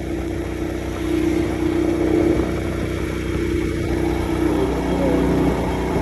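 Motorcycle engine running steadily while riding along, with a low rumble underneath.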